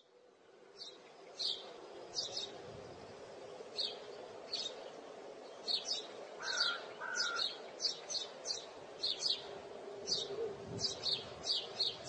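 Songbirds chirping in many short, quick calls, with two lower whistled notes about six and a half seconds in, over a faint steady background hum; the sound fades in at the start.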